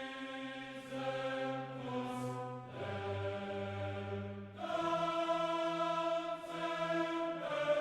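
Background music of slow, held choir-like chords that change every second or two, growing louder a little past the middle.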